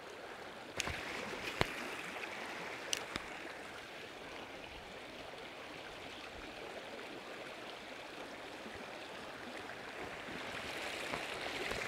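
River water rushing steadily over rocks and around a wading angler's legs, with a few short clicks in the first three seconds.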